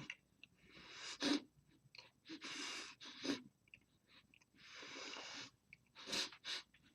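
A man breathing hard through his mouth while chewing a sun-dried ghost chili pepper: long hissing breaths broken by short sharp gasps, the loudest near the end, as he reacts to the pepper's burning heat.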